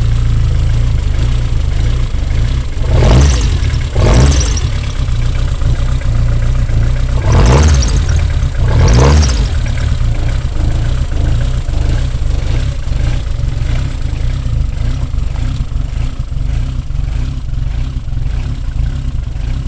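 Toyota AE86's 4A-G twin-cam four-cylinder engine on individual throttle bodies, idling steadily with four quick throttle blips in two pairs, the first pair about three seconds in and the second about seven and a half seconds in, each rev rising and falling back to idle.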